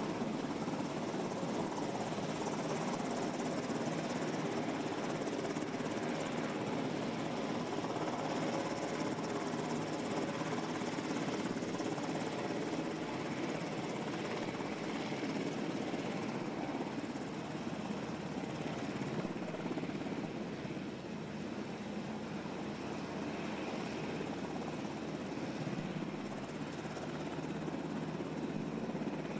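A helicopter running steadily: an unbroken engine and rotor noise with faint steady tones, holding level throughout.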